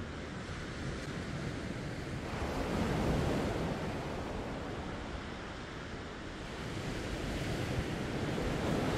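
Sea waves washing ashore, a steady rush of surf that swells louder twice: about two and a half seconds in and again near the end.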